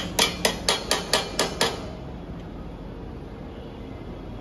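Hammer tapping, a run of about eight quick, sharp knocks at roughly four a second that stops a little under two seconds in.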